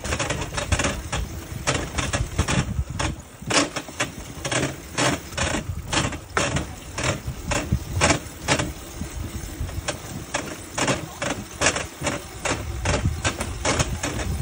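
Rail bike rolling on old railroad track: a steady low rumble from the steel wheels on the rails, with sharp clicks and clacks a few times a second, at uneven spacing, from the wheels and frame.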